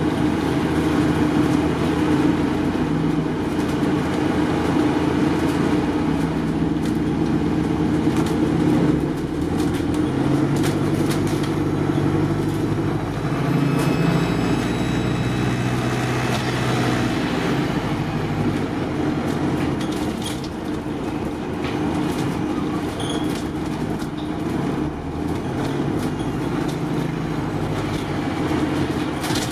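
Double-decker bus engine and running gear heard from inside the passenger saloon while driving, the engine note stepping up and down as the bus accelerates and changes gear. Road noise and small interior rattles run underneath, with a faint steady high whine.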